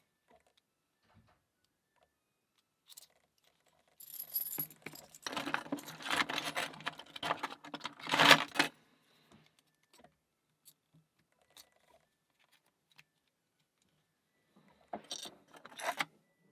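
Keys jangling and a key being worked in a cross lock cylinder to lock it again, with metal clicks and rattles. The clatter is busiest from about four to nine seconds in, with one sharp loud clack near eight seconds, then a few light ticks, and it picks up again near the end.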